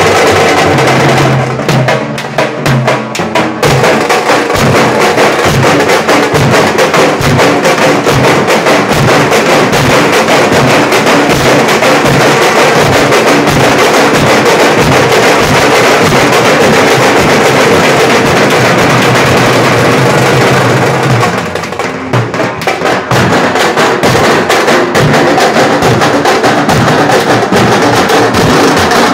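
Dhol-tasha drum group playing: many large dhol drums and a stick-beaten tasha in a loud, dense, fast rhythm. Twice, near the start and about two-thirds through, the deep drum beats drop out for about two seconds while the lighter strokes go on, then the full group comes back in.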